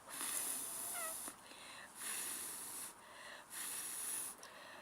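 An insect, likely a bush cricket, stridulating in rhythmic high-pitched buzzing phrases of about a second each, separated by short pauses.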